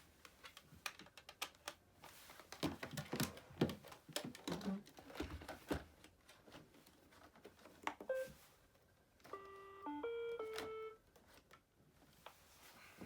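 Plastic clicks and knocks from handling an iRobot Roomba 780 robot vacuum, then a short beep and a stepped electronic tune of several notes from its speaker, the sound it makes when switched on or started after reassembly.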